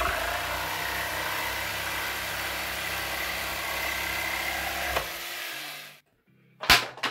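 Electric palm sander running steadily on wood, then winding down and stopping about five to six seconds in.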